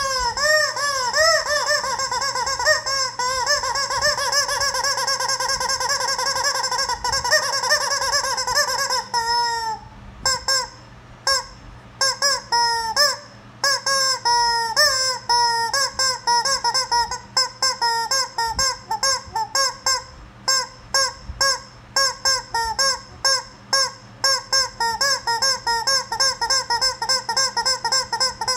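Rubber chicken squeeze toy squawking over and over as it is squeezed. The squawks run almost together at first. About ten seconds in they come as a few separate squawks with gaps between them, and then as a quick, steady run of short squawks, two or three a second.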